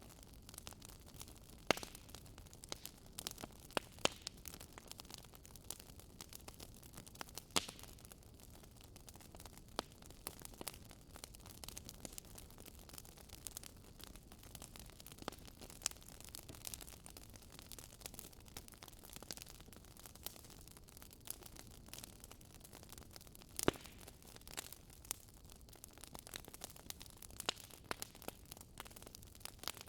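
Wood fire crackling in a fireplace: irregular sharp pops and snaps over a soft steady hiss, with a few louder pops, the loudest about two seconds in and near the three-quarter mark.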